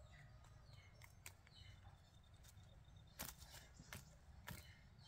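Near silence: faint outdoor background with a few soft scattered clicks and faint high chirps.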